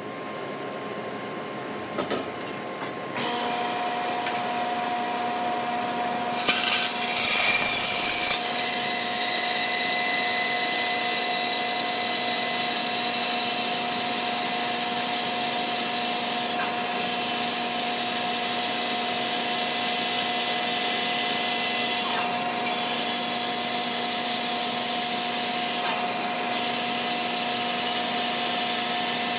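Bandsaw with a dull quarter-inch blade cutting the profile of an epoxy-laminated longbow blank. The machine's steady hum comes up about three seconds in, and the loud cutting noise starts about six seconds in. The cutting noise dips briefly a few times as the stock is fed through.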